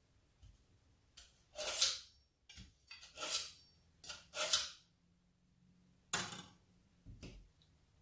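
A kitchen knife drawn again and again through a Bavarian Edge pull-through knife sharpener: a run of short, sharp metallic scraping strokes, the loudest three about a second and a half apart. A knock sounds near the end.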